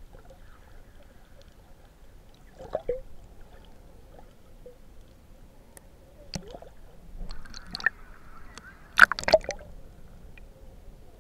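Sea water heard through a camera held underwater: muffled water movement with scattered sharp clicks and knocks. A short hiss of moving water comes a little past the middle, and a cluster of louder clicks comes late on.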